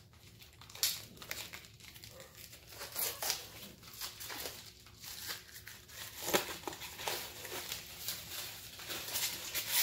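Hands tearing open and unwrapping a book's packaging: irregular crinkling and tearing rustles, loudest about a second in and again past the middle.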